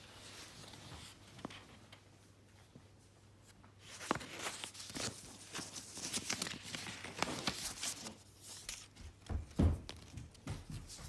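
Paper crinkling and tearing as a handmade greeting card is handled and opened, starting about four seconds in as a run of crackly rustles. A soft thump follows near the end.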